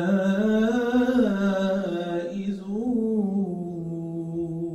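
A man's voice reciting the Quran in a melodic chant (tajweed): one long drawn-out phrase whose pitch rises and falls, fading out at the very end.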